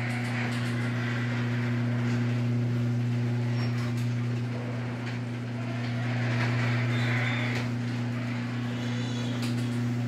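Genie chain-drive garage door opener running, a steady motor hum with the rumble of the sectional door rolling up its tracks, cutting off sharply at the very end as the door stops. The door's hinges, rollers and rails are freshly lubricated with silicone.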